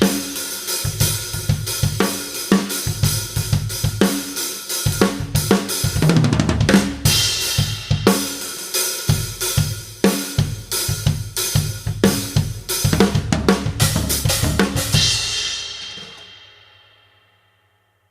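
Drum kit (Mapex Storm with a Tama Soundworks snare and Dominion cymbals) played in a busy improvised groove of kick, snare, toms, hi-hat and cymbals, picked up by a single dynamic mic over the drummer's shoulder. Near the end a final cymbal crash rings out and fades away to silence.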